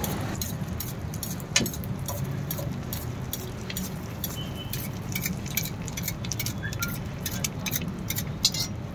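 Egg omelette frying in oil on a flat iron griddle: crackling and quick ticks from the hot oil, with a spoon clinking and scraping on the griddle as the batter is spread, and a sharper click about a second and a half in, over a steady low hum.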